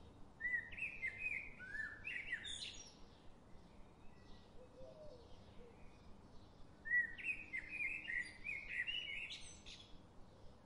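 A songbird singing two phrases of quick chirping notes, one starting just after the beginning and one about seven seconds in, over faint regular ticking.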